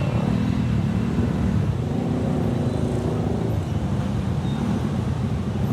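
Road vehicles' engines running with a steady low rumble.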